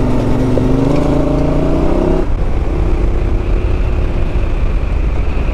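Yamaha Ténéré 700's parallel-twin engine pulling along under throttle, its note rising slowly, then dropping to a lower, steady note a little over two seconds in.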